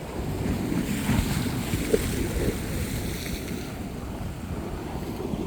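Wind buffeting the microphone over the wash of surf on a beach, the hiss of the waves swelling about a second in and easing off after three.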